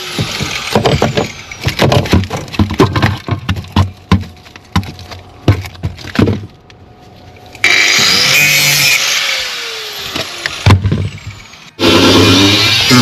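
A rapid, irregular series of knocks and bangs, as rotten metal is hammered and prised out of a Land Rover body. This is followed by a few seconds of a power tool that runs up and then winds down, and then two or three more knocks.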